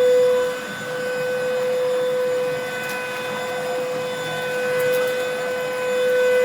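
iwoly C150 cordless stick vacuum running, a steady motor whine over rushing air, getting a little louder and softer as it is moved.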